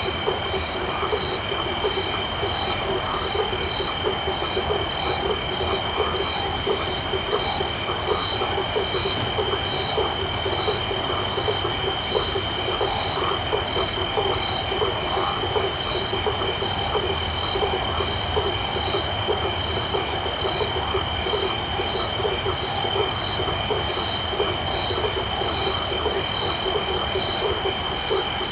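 Night chorus of frogs and insects: a dense, rapid pulsing of frog calls underneath steady high-pitched insect trilling, with one high chirp repeating regularly a little under twice a second. The whole chorus holds steady throughout.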